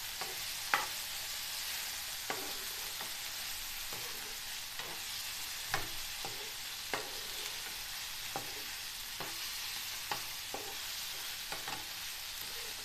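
Chicken liver pieces frying in hot oil in a non-stick pan as a spatula stirs them: a steady sizzle with sharp pops every second or so. Liver spatters and bursts easily in hot oil, which is why it has to be stirred slowly.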